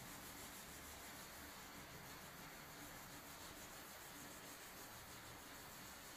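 Faint, steady rubbing of a cloth pad being worked by hand over a painted wooden door panel to polish it, under a low hiss.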